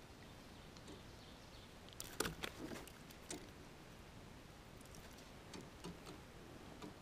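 A quiet background with a short cluster of sharp clicks and taps about two seconds in, then a few fainter ticks.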